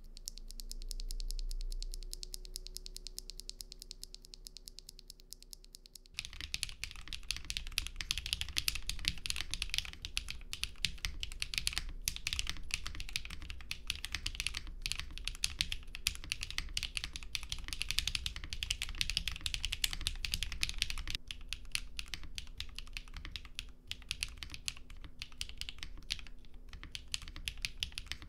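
Typing on a Freebird60 60% keyboard fitted with HMX Cloud linear switches and Akko PBT keycaps. Each keystroke gives a clack whose bottom-out is toned down by the switches' LY stems. The typing starts about six seconds in as a fast, dense run of keystrokes, then turns slower with more gaps about three quarters of the way through.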